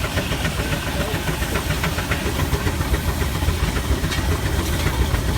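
Case steam traction engine running, a rapid run of exhaust chuffs over steady steam hiss and a low rumble.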